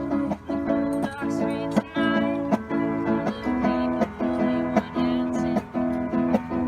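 Music: a strummed acoustic string instrument playing chords in a steady, even rhythm.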